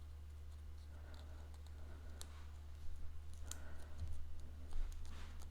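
Soft scattered clicks and taps of cut cardstock pieces being handled and glued together, over a steady low electrical hum.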